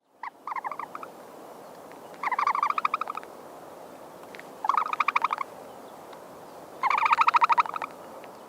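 Ostrich calling: four bursts of rapid, pulsed trilling calls, each under a second long and about two seconds apart, over a steady hiss.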